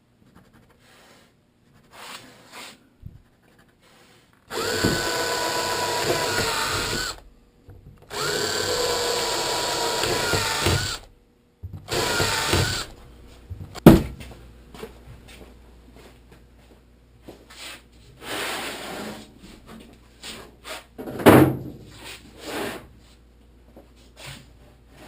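Power drill pre-drilling pilot holes through plywood side planks into the hull's chine: two steady runs of about three seconds each and a shorter third, the motor whine rising slightly as each hole finishes. Knocks and clatter of handling the drill and wood follow, with a sharp knock about fourteen seconds in.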